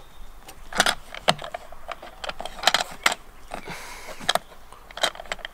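Hands working at the seat of a Sea-Doo SPX jet ski: a handful of sharp, irregular clicks and knocks, with light handling noise between them.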